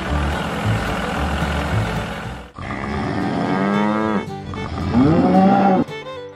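Background music, then two long mooing calls from a cow. The first moo falls in pitch; the second, louder one rises and then falls.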